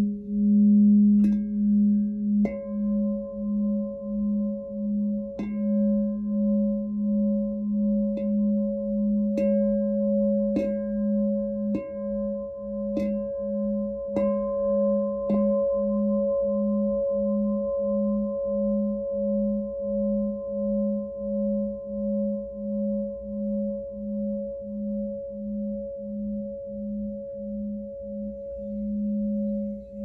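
Platinum Lemurian Seed glass singing bowl ringing with a slow pulsing wobble in its low tone. It is tapped lightly about ten times in the first half, roughly once a second from about eight seconds in, and then rings on steadily.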